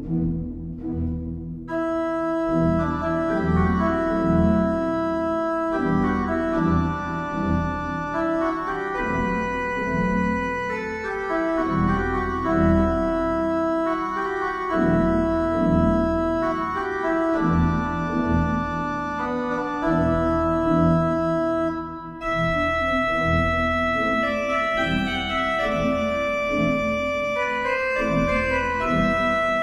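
Organ music: held chords under a slow line of sustained notes that change every second or two, with the full, bright registers coming in about two seconds in.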